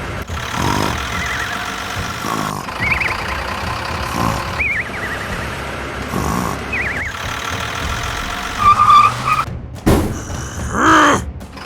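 Cartoon construction-truck sound effects: a steady engine rumble, with three short warbling tones partway through and louder bursts near the end.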